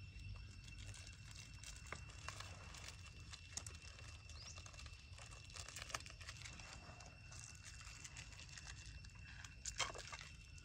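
Faint forest ambience: a steady, thin, high-pitched insect drone under scattered light crackles and ticks, with a louder run of crackling near the end.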